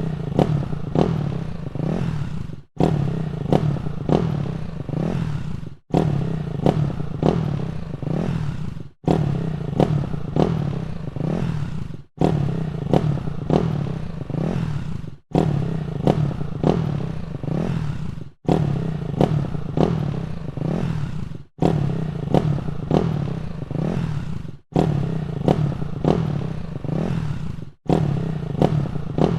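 Motorcycle exhaust revving with repeated sharp throttle blips over a running engine. The sound cuts out suddenly for a moment about every three seconds, then carries on in the same pattern.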